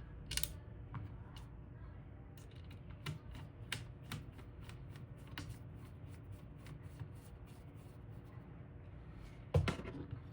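A run of light, quick clicks, about three or four a second in the middle, from small hardware being handled. There is a sharper click about half a second in and a louder knock near the end.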